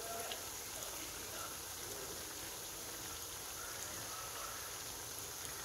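Oil sizzling steadily around ring doughnuts frying in a frying pan, with a fine, even crackle of bubbling.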